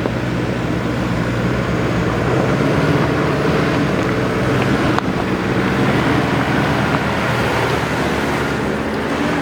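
4x4 vehicle engine running steadily as it drives along an off-road track, with tyre and wind noise, getting a little louder about two seconds in.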